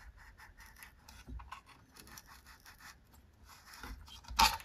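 A small gear being pushed and twisted into a hole in a cardboard template: faint scratching and rustling of cardboard with small clicks, then a sharper knock near the end.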